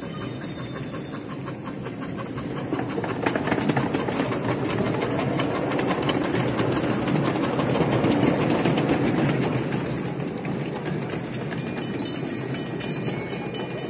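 Ride-on miniature steam locomotive passing close by, its exhaust beats and wheel clatter growing louder from about three seconds in. It is loudest as the engine goes past, then eases as its loaded riding cars roll by, clicking over the rail joints.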